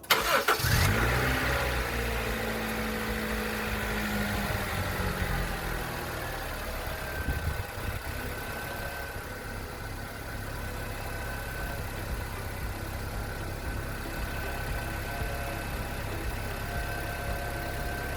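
Honda CR-V engine starting with a sudden catch, its revs falling over several seconds and then settling to a steady idle, on its first run after a thermostat replacement and coolant refill.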